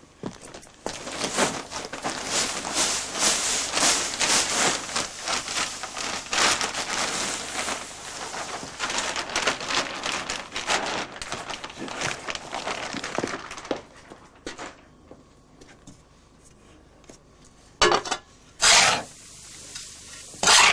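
Coarse tobacco pouring out of a paper sack onto a heap: a dense crackling hiss with paper rustling that lasts about thirteen seconds, then stops. Near the end a shovel digs into the heap three times, each a short loud scrape.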